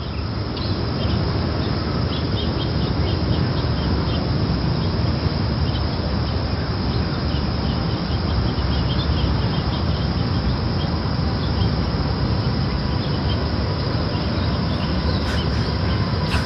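Steady outdoor background ambience: a dense low rumbling haze with small birds chirping throughout.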